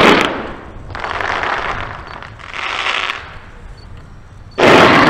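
Daylight colour-smoke fireworks going off in salvos: a loud blast at the start and another near the end, with rushing hiss between them.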